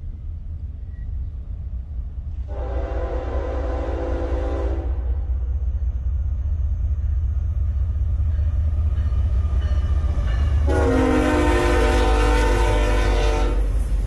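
Norfolk Southern GE ES44AC diesel locomotive approaching and sounding its air horn in two long chord blasts, one a few seconds in and another near the end. Under them the low rumble of the oncoming train grows steadily louder.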